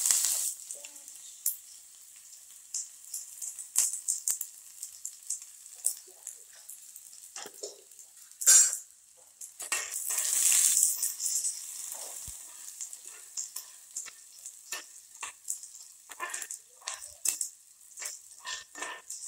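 Cumin seeds and garlic cloves sizzling in hot oil in a metal kadhai, the tadka stage of cooking, with a spatula clicking and scraping against the pan as it is stirred. The sizzle surges louder about eight seconds in and again around ten seconds.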